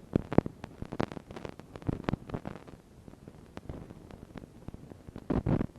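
Irregular small clicks and taps of a precision screwdriver and screws being worked against a laptop's casing, with a denser, louder run of taps near the end.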